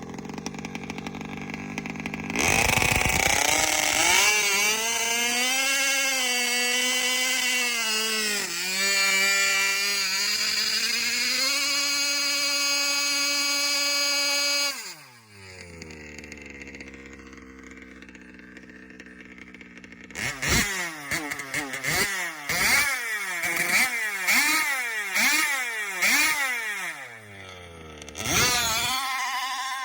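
A large-scale RC dragster's two-stroke gas engine on a test-and-tune run. It starts to rev about two seconds in and holds high revs, its pitch wavering, for about twelve seconds. It then drops to a low idle, revs up and down in quick blips about once a second, and gives one more short burst of throttle near the end.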